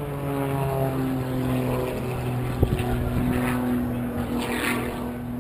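Propeller-driven aerobatic airplane's engine droning steadily, its pitch shifting slowly as it climbs. A brief knock comes about halfway through.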